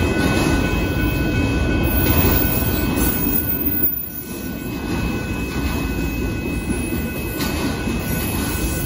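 Union Pacific freight train of autorack car carriers rolling past a grade crossing: a steady rumble of wheels on the rails, with a few thin, steady high-pitched tones over it. The sound dips briefly about four seconds in.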